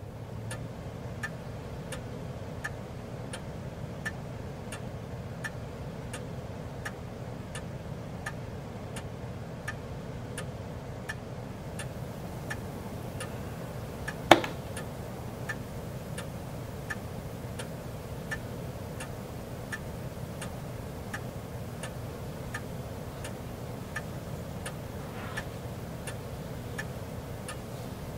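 A clock ticking steadily, about three ticks every two seconds, over a low steady hum. About halfway through there is one much louder sharp click.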